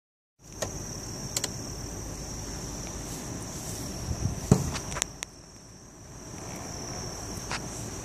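Steady high-pitched chorus of night insects such as crickets, with a few sharp clicks and a louder knock about four and a half seconds in.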